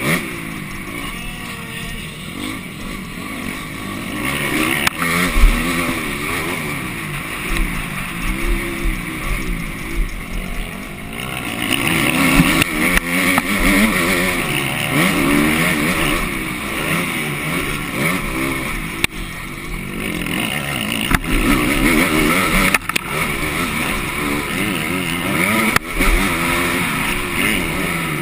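MX2 motocross bike engine heard from on board, revving up and down repeatedly as the rider accelerates, shifts and backs off around the track. A few sharp knocks cut through it.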